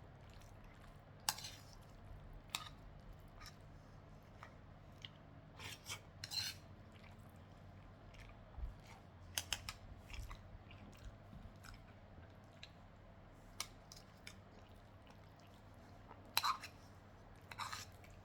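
Eating sounds: faint, scattered clicks and taps of cutlery against a plate, with a few louder ones near the end.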